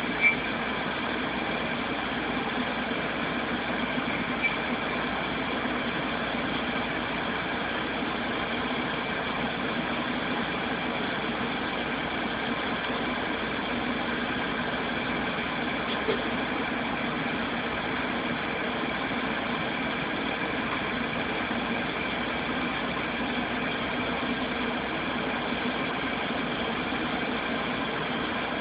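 A steady mechanical hum that holds one even pitch throughout, with a faint click just after the start and two more, at about four and sixteen seconds in.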